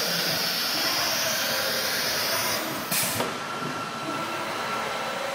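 CNC router with an automatic tool changer running: a steady high hiss and whine, broken about three seconds in by a short, sharp burst of hissing, after which a fainter steady hiss and a thin steady tone carry on.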